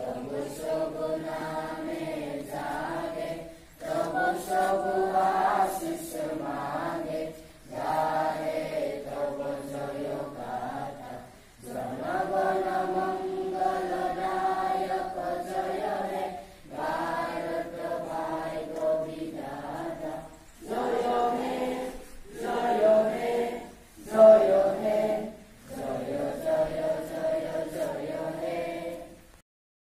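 A large group of schoolchildren singing together in unison, in long sustained phrases with short pauses for breath between them.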